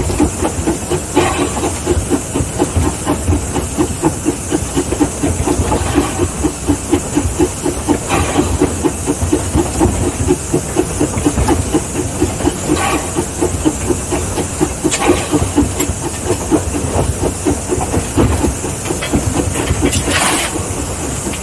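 Mason Machine Works 0-6-4T Mason Bogie steam locomotive running, heard from its cab: a steady hiss of steam over a fast, even beat from the moving engine, with occasional sharp clanks, the loudest near the end.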